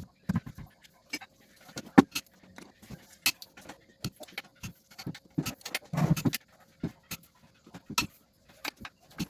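Irregular clicks, clinks and light knocks of tools and metal transmission parts being handled, with a louder clink about two seconds in and a short scraping patch near six seconds.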